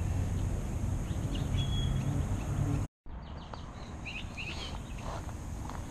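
Small birds chirping against outdoor background noise with a low rumble; the sound breaks off for an instant about three seconds in and comes back quieter, with more chirps.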